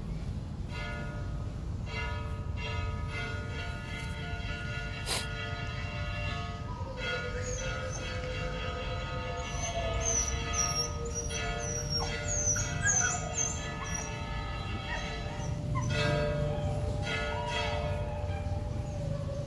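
Church bells ringing: long, overlapping ringing tones that change pattern a few times, over a steady low rumble. Short high chirps come through in the middle.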